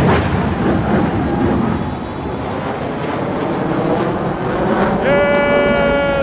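Stadium crowd noise at an NFL game, a loud, dense steady din, with a sharp hit at the very start. About five seconds in a loud, steady-pitched call or horn-like tone rises above the crowd for just over a second.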